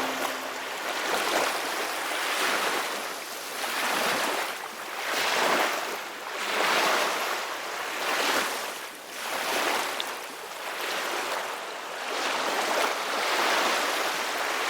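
Sea waves washing in, swelling and ebbing in a steady rhythm of about one surge every second and a half. The tail of a ship's horn dies away right at the start.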